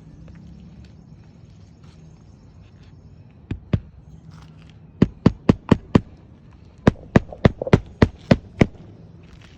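Hammer blows on a roof shingle during a repair: two knocks, then two quick runs of sharp strikes at about four a second.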